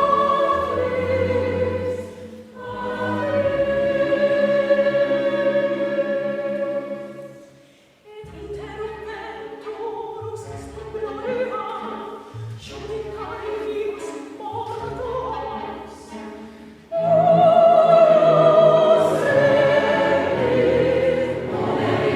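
Sacred classical music: voices singing sustained, vibrato-laden lines with a chamber orchestra. The music briefly fades about eight seconds in, continues more softly with shorter notes, then returns loudly in a full passage about seventeen seconds in.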